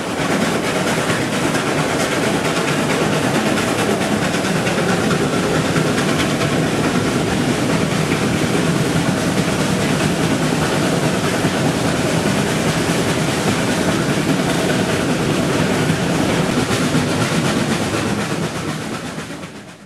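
Steam train running, a loud, steady mix of rumble and hiss, fading out near the end.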